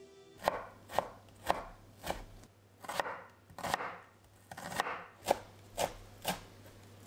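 Chef's knife chopping on a wooden cutting board, slicing onion and then chopping parsley: a row of sharp knocks about twice a second.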